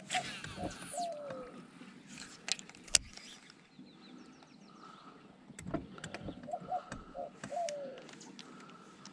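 A bird's low call, given twice about six seconds apart, each time a few short notes ending in a longer falling note. Two sharp knocks come between the calls, about two and a half and three seconds in, and the second knock is the loudest sound.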